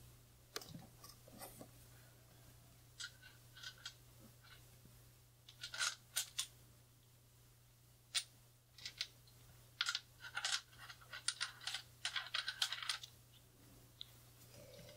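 Irregular clicks and small clattering knocks from the parts of a Joilcan aluminium camera tripod being handled and fitted together. They come singly at first and thicken from about five seconds in to near the end.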